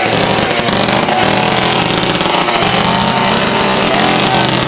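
Small petrol engine of a bicycle motor kit running steadily, freshly started and running well.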